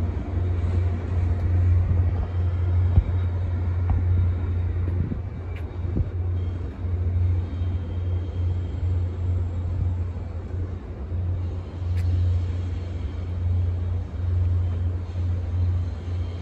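Low, steady rumble of an approaching Caltrain diesel train, its locomotive engine running as it rolls slowly toward the platform.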